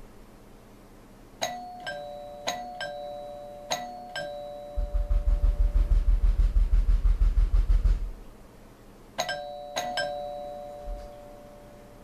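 A 1971 two-tone doorbell chime ringing ding-dong: three ding-dongs in quick succession, then one more near the end, each a pair of struck notes that ring on. Between them comes a loud, fast, deep pounding of about six beats a second that lasts around three seconds.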